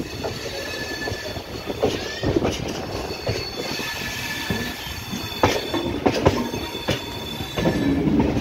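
Chozhan Express wheels running over the track as the train pulls out, with irregular clacks over rail joints and thin, high wheel squeals at intervals. Near the end a lower steady tone joins in.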